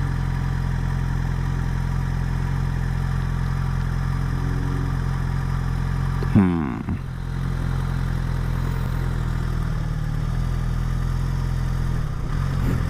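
Motorcycle engine idling steadily, with a brief louder sound about six seconds in.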